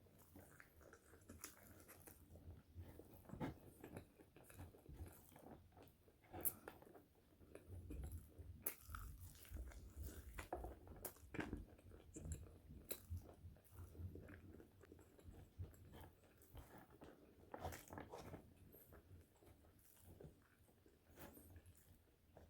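Close-miked chewing of French fries: irregular crisp crunches and bites with soft mouth sounds between them.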